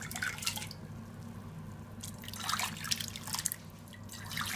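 Hot tea poured from one stainless steel saucepan into another, splashing into the pot in separate pours: one at the start, a longer one in the middle and another beginning near the end. A steady low hum runs underneath.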